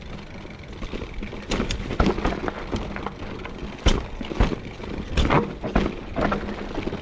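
Trek Fuel EX 5 full-suspension mountain bike riding over rough trail: a steady rumble of tyres on dirt with irregular sharp knocks and rattles as the bike hits bumps and rocks.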